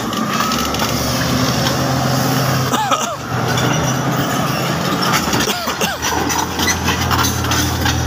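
Komatsu crawler bulldozer's diesel engine running steadily under load as the machine moves over rocky, freshly cut soil, with the grinding of its tracks and stones underneath. A few short high squeaks come about three and five and a half seconds in.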